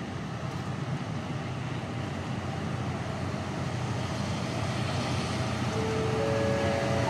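A KiHa 183 diesel multiple unit coming in along the track, its engine rumble and running noise growing steadily louder as it approaches. Near the end a few thin squealing tones set in from its brakes as it slows for the station stop.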